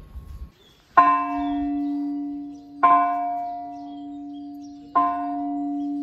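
A metal temple bell struck three times, about two seconds apart, each strike ringing on with a steady low tone and a slow waver in loudness.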